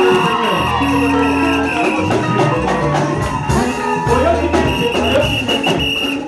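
Music playing, with long held bass notes that change every second or so under several held higher notes.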